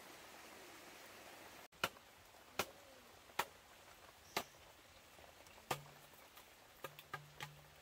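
Sharp single knocks on bamboo as the bamboo wall of a hut is worked, about a second apart at first and coming quicker near the end, after a steady hiss in the first second and a half.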